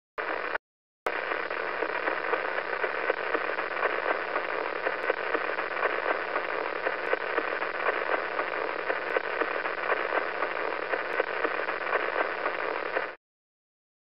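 Radio emission of the pulsar PSR B0950+08 converted to sound: a hiss like radio static, pulsing with the star's spin of four times a second, over a faint steady hum. A short blip comes first, then the hiss runs steadily and cuts off about a second before the end.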